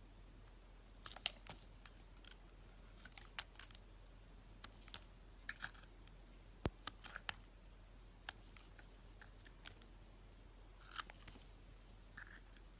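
Faint, sparse, crisp crackles and clicks, about a dozen spread unevenly with quiet gaps between them; the sharpest comes about a second in.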